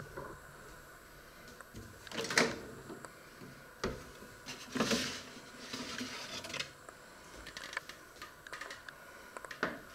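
Countertop microwave oven door opened, then a metal baking tray slid out and handled: a loud clack about two and a half seconds in, and a longer scraping clatter about five seconds in, followed by smaller knocks.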